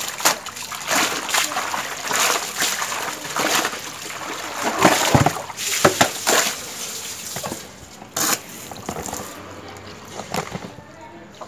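A wet towel lifted and plunged again and again into a plastic tub of soapy water, splashing and sloshing in irregular strokes. Near the end the splashing stops and a gentler running-water sound follows as a hose fills the tub.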